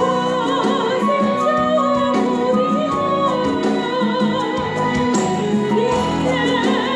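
Gospel praise song: a singer holding notes with vibrato over instrumental accompaniment.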